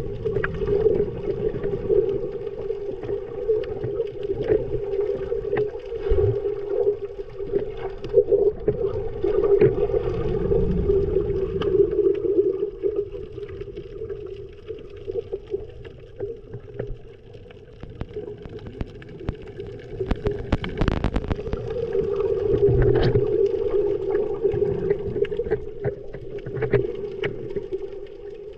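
Underwater sound of a boat engine: a steady hum carried through the water, with gurgling bubbles and scattered clicks. The hum fades for a while in the middle and then comes back strongly.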